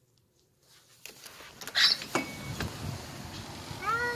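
A few sharp clicks and a knock, then a steady background hiss. Near the end a cat starts a long, drawn-out yowl that rises briefly and then slowly falls: the territorial yowling of cats squaring off to fight.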